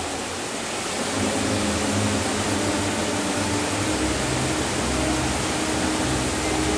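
Steady rushing noise with faint low held notes underneath, a quiet stretch of the stage show's soundtrack between music cues.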